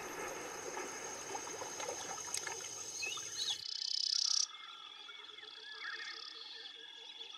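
Background music that cuts off sharply about halfway through, giving way to woodland ambience: scattered bird chirps over a steady high insect-like drone and faint repeated animal calls.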